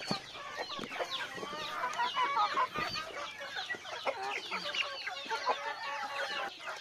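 A flock of native chickens and chicks clucking and peeping, many short overlapping calls.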